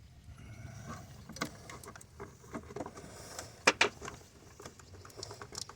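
Scattered metal clicks and clinks of hand tools as a socket extension is fitted and set on a bolt in the engine bay, with two sharp clicks close together about two-thirds of the way through.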